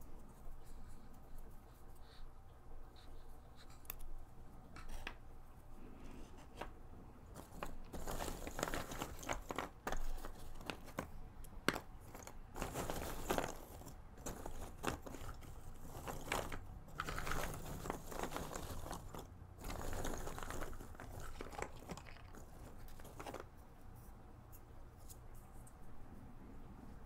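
Cardboard jigsaw puzzle pieces rustling and clicking as a hand rummages through a box full of them, busiest through the middle. Near the start and end there are only sparse light clicks as single pieces are picked up and set down.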